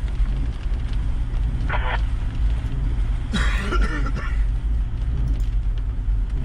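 Steady low rumble of a Toyota LandCruiser 70 Series driving, heard inside the cabin, with a man coughing briefly twice, about two seconds and three and a half seconds in.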